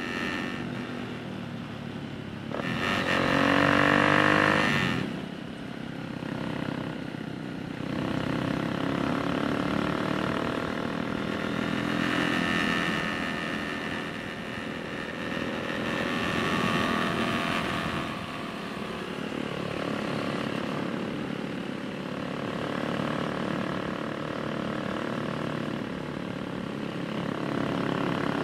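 Small motorcycle engine running under way, its note rising and falling again and again as the bike accelerates and eases off; loudest about three seconds in.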